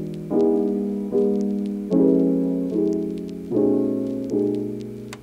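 Background music: a piano playing chords struck about every 0.8 s, each fading before the next.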